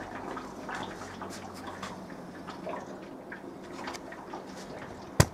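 Faint, irregular ticking and dripping of water in a Grainfather brewing system as it heats its water, with one sharp click near the end.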